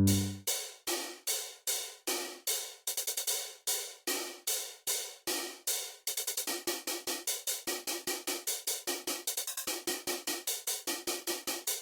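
A run of short hi-hat-like percussion hits, each a crisp noisy tick that dies away quickly. They come about two a second at first and quicken to about four a second roughly halfway through.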